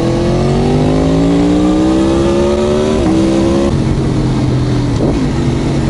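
Aprilia Tuono V4 1100 Factory's V4 engine through an Arrow exhaust, pulling hard with its pitch rising steadily for about three seconds. The pitch then drops and the engine settles to a steady lower note, with a wash of road and wind noise underneath.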